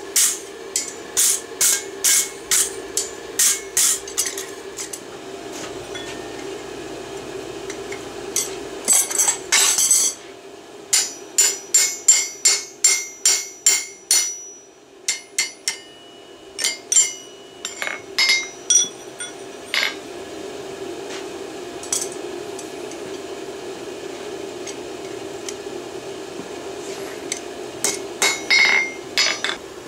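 Hand hammer striking hot steel on a steel anvil, ringing blows in runs: about two a second at the start, again around ten to fourteen seconds in and sixteen to twenty seconds in, with a few more near the end and pauses between the runs. A steady hum lies underneath.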